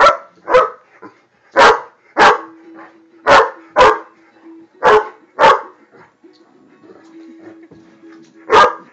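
A Great Dane barking at a lit lighter flame: about nine loud barks, several in pairs, then a pause of two to three seconds before one more bark near the end.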